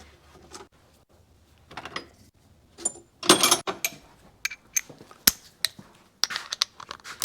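Hand tools clicking and clinking on metal as a 12 mm bolt is fitted and tightened into an aluminium motorcycle engine case. There are scattered sharp ticks, a louder clatter about three seconds in, and a run of quick clicks near the end.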